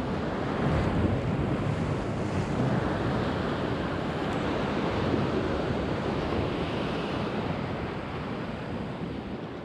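Sea surf washing against rocks in a steady rush, with wind buffeting the microphone.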